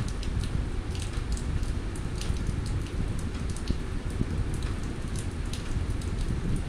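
Sliced onions frying in hot oil in a steel kadai, stirred with a spatula: a steady sizzling hiss with scattered crackles.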